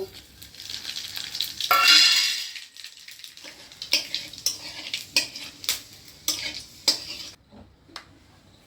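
Nigella seeds and dried red chillies hitting hot mustard-style frying oil in a kadai, sizzling loudly in a burst about two seconds in as the tempering goes in. Then a spatula stirring in the pan, with scattered clicks and scrapes against the metal over a softer sizzle.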